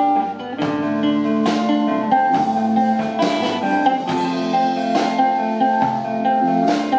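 Live rock band playing an instrumental passage: electric guitar notes over a steady bass line, with regular drum and cymbal strikes.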